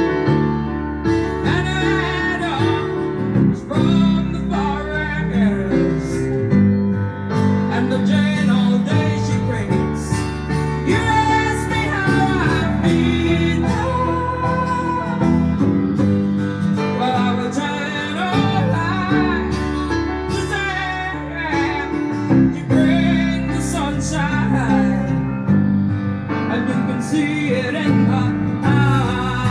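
A song played from a vinyl record on a Sansui SR-222 MkIV turntable: guitar accompaniment with a woman singing.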